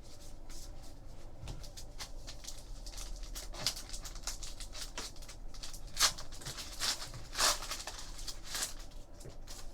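Trading cards being handled and flipped through by hand: a steady run of light slides and flicks, with a few louder swishes in the second half.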